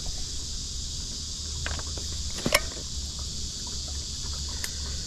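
Steady high-pitched insect buzz, with a few sharp metallic clicks of pliers on a fishing hook as a fish is unhooked; the sharpest click comes about halfway through.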